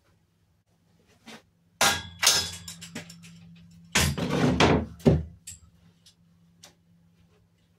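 Metal clunks and clattering from handling heavy parts at the engine and steel frame, in two loud bursts about two seconds apart, over a faint steady low hum.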